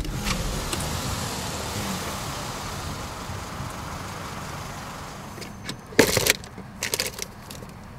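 Steady rushing car noise that slowly fades over the first five seconds. About six seconds in a car glove box is snapped open and its contents are rummaged, with a loud clatter and a few smaller knocks a second later.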